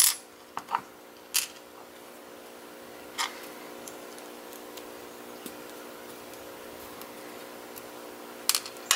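Small sharp metallic clicks and taps as a brass lock core is handled and worked with a small bent tool while its pins are taken out. They come a few at the start, singly about a second in and around three seconds, and in a cluster near the end, over a steady background hum.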